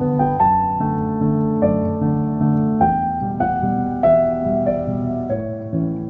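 Background piano music: a gentle melody of separately struck notes, about two a second, over held lower notes.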